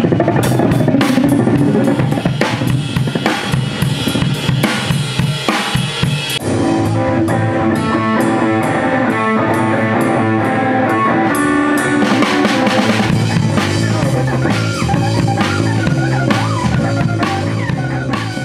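Live rock band playing: a drum kit hit hard on snare, bass drum and cymbals, with electric bass guitar joining in with sustained notes about six seconds in. It fades near the end.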